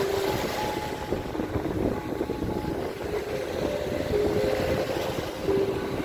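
Steady rush of wind on the microphone and surf, with a few soft ringing notes of a steel tongue drum struck with mallets, each note a different pitch.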